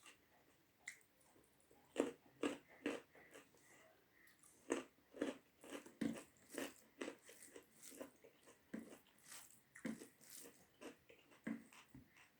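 A person chewing big mouthfuls of a rice meal of dal, vegetable curry and pickle up close to the microphone: irregular wet smacks and crunchy bites, a few a second, faint at first and louder from about two seconds in.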